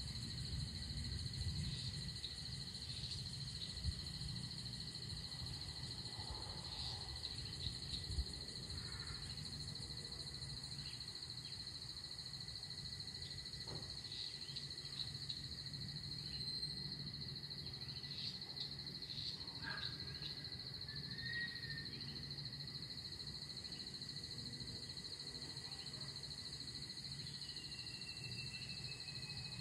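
Evening insect chorus: a steady, unbroken high trill, over a low steady rumble, with a few faint short calls scattered through and a falling whistle near the end.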